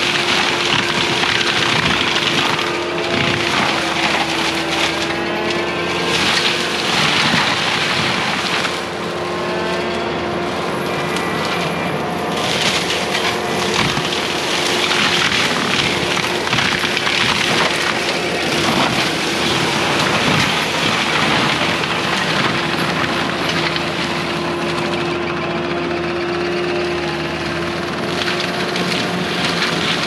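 Prinoth M450s-1600 skid-steer forestry mulcher running under load: a steady high whine from the spinning mulching head and engine, with bursts of grinding noise that come and go as it chews through brush.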